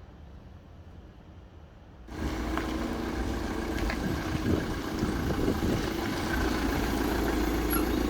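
A vehicle engine running steadily, coming in suddenly about two seconds in after a faint low hum.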